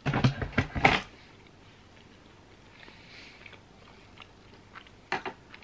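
A person chewing a mouthful of sandwich close to the microphone: a burst of loud, clicky mouth sounds in the first second, then fainter chewing, with a few more clicks near the end.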